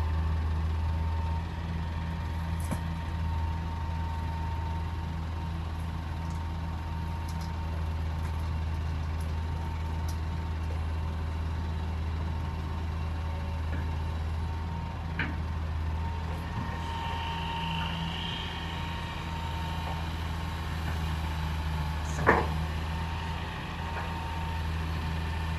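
Hitachi excavator's diesel engine running steadily under work, with scattered light clicks and one sharp metallic clank about 22 seconds in.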